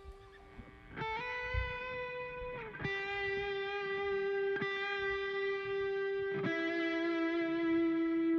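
Electric guitar playing alone, a slow line of three long held notes, the first bending slightly in pitch, after the rest of the band drops out.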